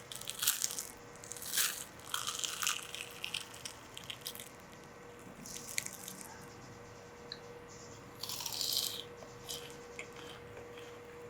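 Crunchy bites and chewing of deep-fried sesame balls with crisp sesame-seed crusts, in several separate crackly bursts.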